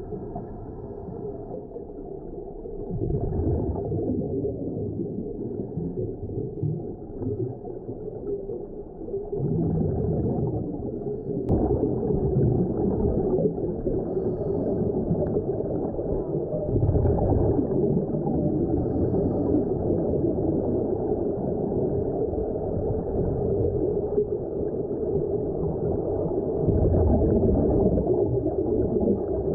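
Muffled underwater sound: a steady low rumble with gurgling air bubbles, such as those venting from Sea Trek diving helmets. It gets louder about three seconds in and steps up again suddenly about eleven seconds in.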